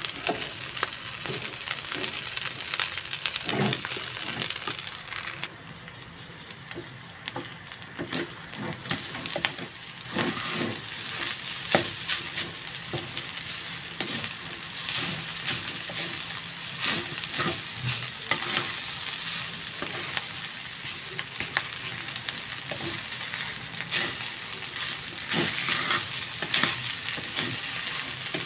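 Fried rice with butter and egg sizzling in a metal wok while a wooden spatula stirs, scrapes and knocks through it. The sizzle drops back for a few seconds about six seconds in, then picks up again.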